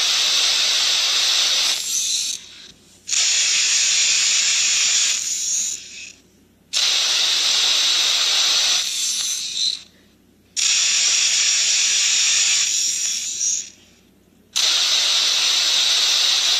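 Two phones running the Talking Carl app repeat each other's sound back and forth: a hissing noise played in turns, about five bursts of two to three seconds each with short pauses between.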